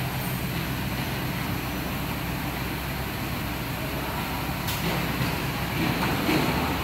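Automatic PPR pipe packing machine running: a steady low mechanical hum, with a sharp click about five seconds in.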